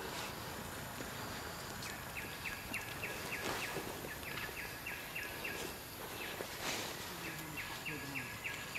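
Several bursts of rapid, evenly spaced high chirps, about four a second, over steady outdoor background noise.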